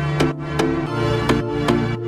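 Electronic background music with a steady quick beat over held synth notes; the chord changes about a second in.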